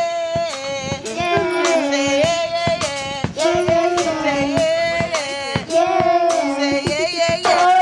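A woman and children singing a melody together in long held notes, with hand claps keeping time.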